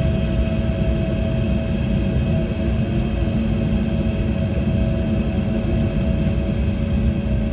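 Embraer E190's twin turbofan engines at takeoff power, heard from inside the cabin: a steady low rumble under a steady engine whine, typical of the takeoff roll.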